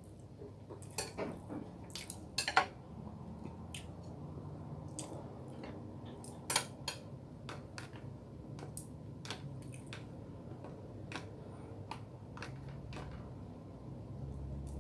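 Cutlery clinking and tapping on a plate while eating: scattered light clicks, a few louder ones, over a faint steady low hum.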